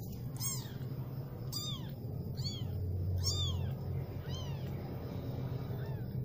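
Young kitten mewing: about six short, high-pitched calls, each rising and then falling in pitch, roughly one a second.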